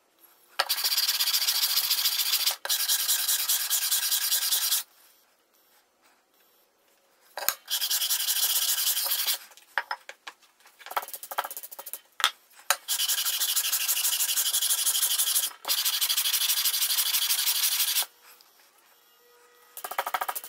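Cast-iron hand plane being lapped flat on sandpaper over a granite slab: metal scraping back and forth on the abrasive in runs of a few seconds, with pauses and a few sharp knocks in between. A stiff brush sweeps across the paper near the end.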